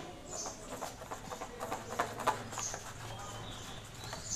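A small whisk stirring thick gram-flour batter in a steel bowl, with irregular clinks and scrapes against the metal.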